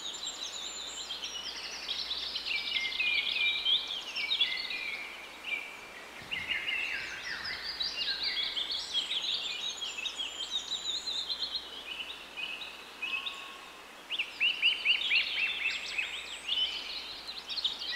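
A chorus of many songbirds singing and chirping over one another, with a louder run of quick repeated chirps near the end.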